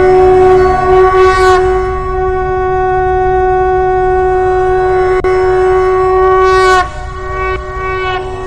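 Conch shell (shankh) blown in one long, loud, steady note that wavers briefly about a second in and breaks off near the end, over a low rumble.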